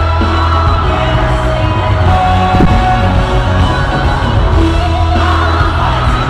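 Live pop concert music, loud, with heavy bass and a singing voice.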